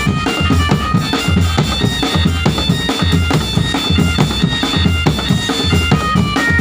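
Indonesian marching drum band playing a tune: a bright, high melody over a steady bass drum beat and snare drum strokes.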